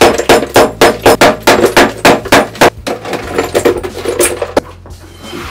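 Claw hammer chipping broken ceramic tile and mortar off the edge of a tiled countertop, sharp strikes about three a second. The strikes give way to lighter, quicker clinks a few seconds in.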